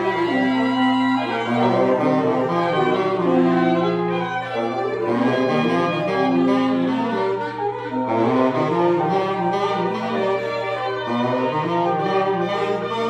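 Free-jazz improvisation by a reed ensemble of clarinet, alto and tenor saxophones, several horns holding overlapping long notes at once, with low tones sliding upward now and then.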